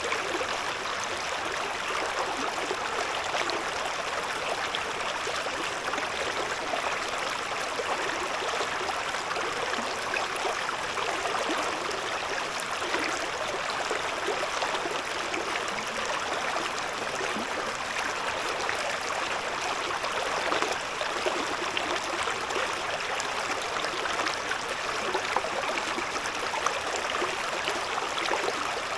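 Shallow river babbling and gurgling over stones, a steady rush of running water.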